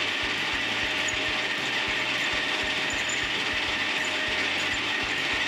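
Metal lathe running while its tool turns down the end of a stainless steel bolt: a steady hiss and hum with an irregular low rattle.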